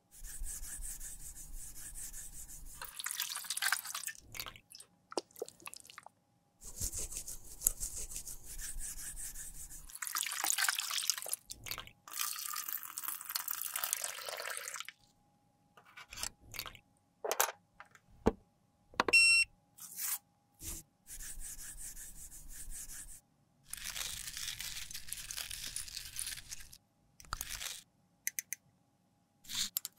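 A sequence of close-up handling sounds: a brush scraping old makeup residue out of a small plastic jar, then 70% alcohol poured over the emptied containers in a stainless steel tray, with scattered clicks and one short ringing clink about two-thirds through. Near the end, a metal spoon scoops gold loose powder from a small glass beaker.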